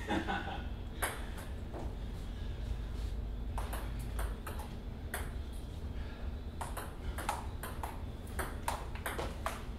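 Table tennis rally: the ball clicking off the paddles and the table in sharp single hits, spaced out at first and coming quicker in the second half. A steady low hum runs underneath.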